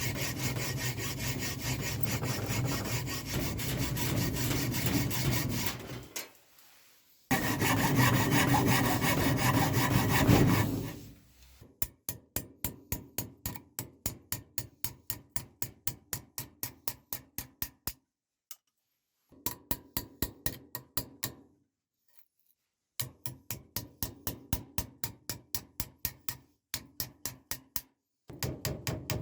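Hand rubbing, sawing-like strokes of a tool on hard material. First comes a steady scraping for several seconds, then a louder stretch. After that the tool works in quick, even back-and-forth strokes, about four a second, in several runs broken by short pauses.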